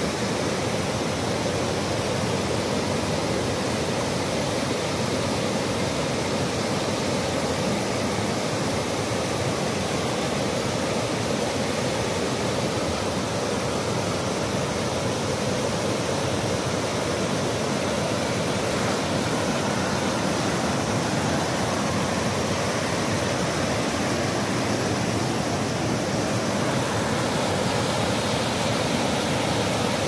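River water rushing down a series of rocky cascades of a waterfall, a steady, unbroken wash of whitewater.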